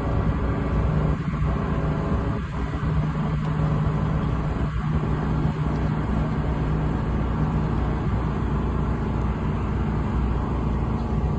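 Tour boat's engine running steadily under way, a constant low drone.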